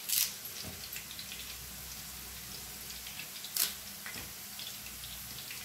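Boondi batter drops frying in hot oil in a pan: a steady sizzle with fine crackling. Twice, just after the start and about three and a half seconds in, a louder short spluttering burst as curry leaves go into the hot oil.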